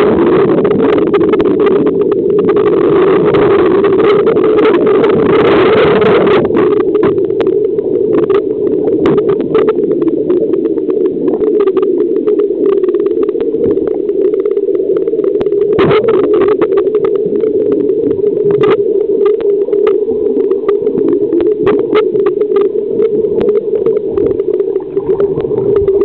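Helicopter dunker (underwater escape trainer) being ditched into the pool: loud rushing, churning water for about the first six seconds, then a steady low hum with many sharp clicks and knocks as the cabin sits submerged.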